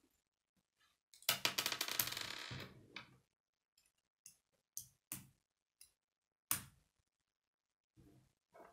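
Hard plastic K'nex building pieces clattering together in a quick run of clicks for about two seconds, then a handful of single sharp clicks as rods and connectors are snapped together.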